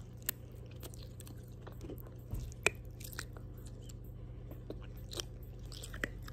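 Candy bracelet beads being bitten off the elastic string and chewed close to the microphone: faint scattered crunches and clicks, the sharpest a little before three seconds in.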